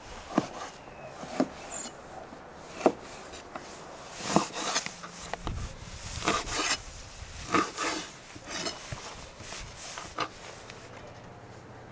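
Kitchen knife cutting raw lamb into chunks on a wooden cutting board: irregular knocks of the blade on the board about once a second, some with a short slicing scrape.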